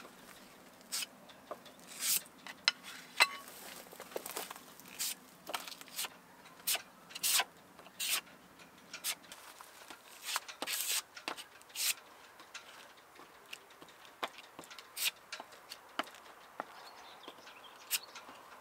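Short, irregular scrapes and clicks of filler being spread and worked into the pitted planking of a wooden boat hull by hand, several strokes a second at times with pauses between.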